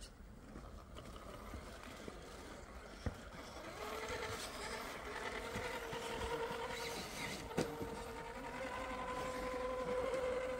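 RC crawler's electric motor and gearbox whining under load, coming in a few seconds in and rising slightly toward the end, with a couple of sharp knocks.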